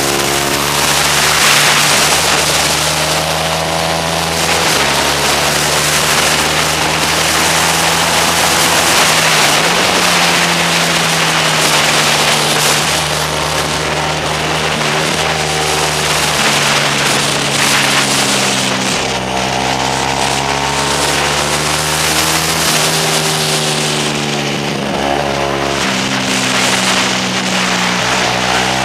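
Motorcycle engine at high revs from an onboard camera, rising in pitch under acceleration and dropping in steps at gear changes and when the rider eases off for corners. Heavy wind rush over the microphone.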